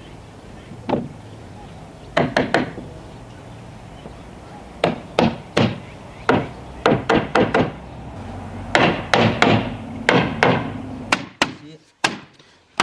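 Hammer knocking on an elm wood frame, driving mortise-and-tenon joints home with sharp wooden knocks in irregular clusters of two to five quick blows.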